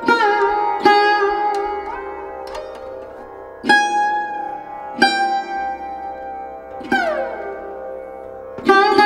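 Background music: a plucked string instrument playing a slow melody of single notes, about one every one to two seconds, each note bending and sliding in pitch as it rings out.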